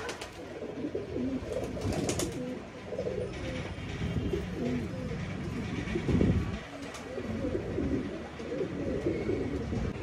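Several highflyer pigeons cooing, with low warbling coos overlapping throughout. A few sharp clicks come about two seconds in, and a louder low sound about six seconds in.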